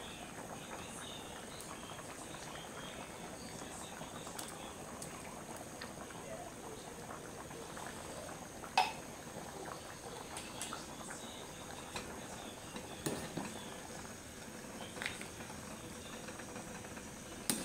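Jackfruit in coconut milk bubbling at a rolling boil in an aluminium pan: a steady bubbling with scattered small pops and clicks. A sharp click comes about nine seconds in, and another comes near the end.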